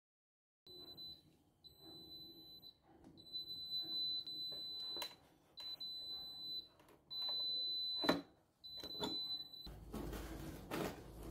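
Bread machine's high, steady electronic beep signalling the end of the baking cycle, sounding in about six stretches, with a few sharp knocks from the lid and pan being handled. Near the end the beeping stops and the metal bread pan knocks and scrapes as the loaf is tipped out onto a wire rack.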